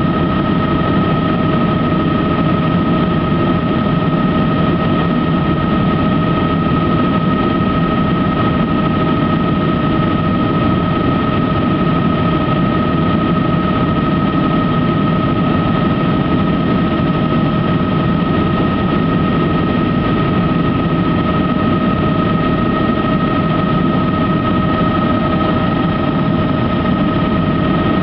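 Helicopter in flight heard from inside the cabin: a dense, steady engine and rotor drone with a constant high whine over it.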